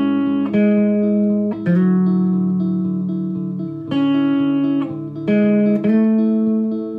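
Background music: a guitar picking notes and chords that change every second or so.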